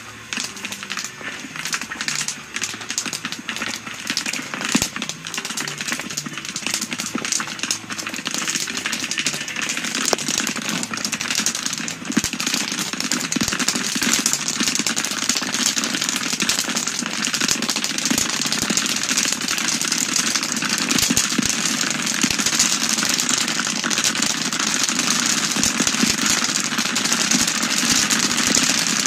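Popcorn kernels popping in a large open wok-style kettle: rapid, irregular pops in a dense crackle. The pops grow denser and louder from about halfway through as more kernels burst.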